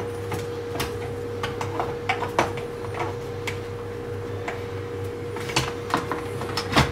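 Scattered light clicks and knocks of a multi-tool's cylinder cover being handled as the spark plug lead is fed through it, with a steady faint hum underneath.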